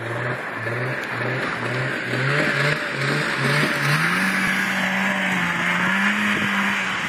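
Snowmobile engine running as the machine drives past, with the hiss of its track on the snow. Its note wavers at a low pitch at first, then climbs about four seconds in as it speeds up, and holds there.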